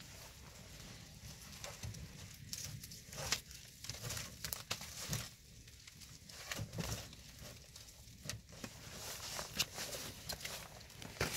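Plastic sheeting rustling and crinkling as it is handled and folded over a log frame, in irregular short crackles, with a few crunching steps on snow.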